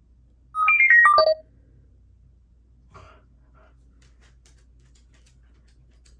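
A child's watch plays a short electronic chime: a quick run of about six beeps at changing pitches, lasting about a second. A faint bump follows about three seconds in.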